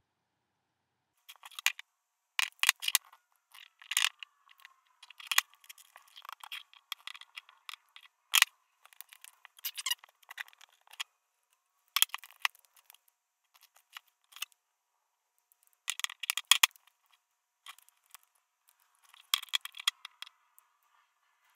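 Fast-forwarded handling sounds: fingers pressing and rubbing an adhesive vinyl skin onto an iPod touch and shifting the device on a table, heard as irregular clusters of quick scrapes and taps, sped up and thin-sounding.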